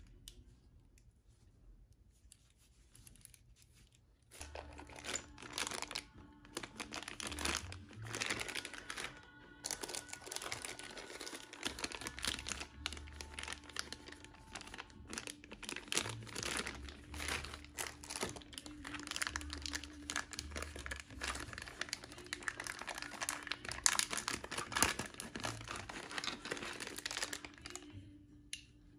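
Clear plastic packaging bags crinkling and rustling as they are handled and opened, starting about four seconds in and going on in irregular bursts until near the end.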